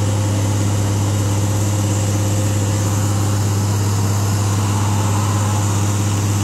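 Mercedes-Benz Actros 3340 truck's diesel engine idling steadily, a deep even hum with no revving.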